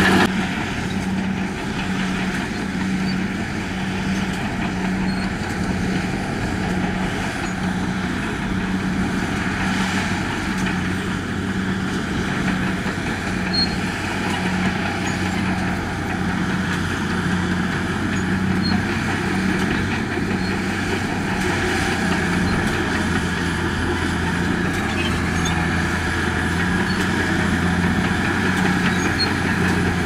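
HBXG crawler bulldozer's diesel engine running steadily while it pushes dirt. It gives a constant low hum and a higher tone that pulses on and off about once a second.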